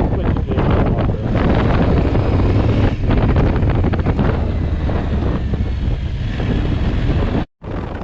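Wind buffeting the microphone over a motorcycle engine running while riding. The sound drops out completely for a split second near the end.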